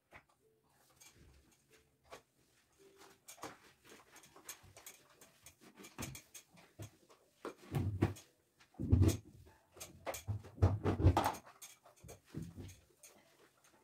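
Knocks, clatters and rubbing from someone cleaning around a bathroom sink cabinet in a small tiled room, louder and busier for a few seconds from about eight seconds in.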